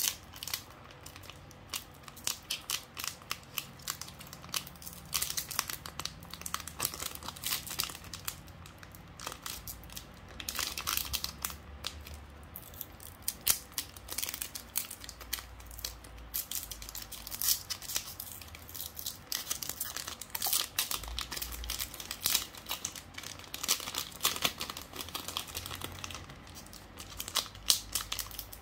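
Foil booster-pack wrapper of Pokémon cards crinkling and tearing as it is handled and opened by hand, a dense run of irregular crackles.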